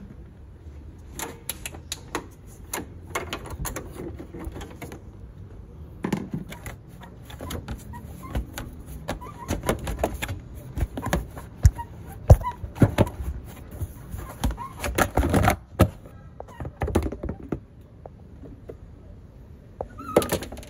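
Irregular clicks, knocks and rattles of plastic bumper clips being pulled and the bumper cover and bracket being handled on a car's front end.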